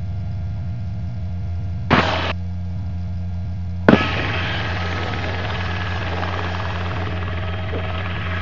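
Hovering helicopter running steadily, its rotor and engine giving a constant low drone during a hoist lift. A short burst of hiss comes about two seconds in, and a click near four seconds, after which a brighter hiss stays on over the drone.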